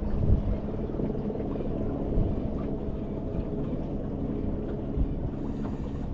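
Wind rumbling on the microphone aboard a small fishing boat, over a low steady hum.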